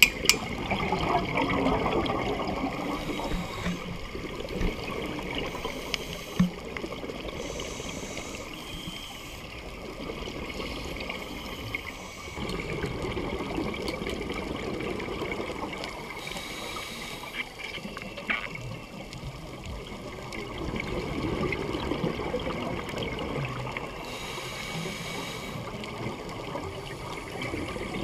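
Underwater scuba breathing through a regulator: exhaled bubbles gurgle in swelling bursts about every eight seconds, with a fainter hiss of inhalation between them.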